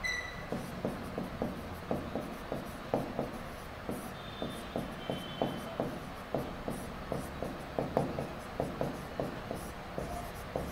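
Marker pen writing on a board: quick short strokes, several a second, with a few brief high squeaks.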